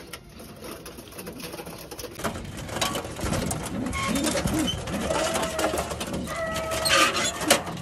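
Domestic pigeons cooing, several low rising-and-falling coos in the middle, over repeated clicking and rattling.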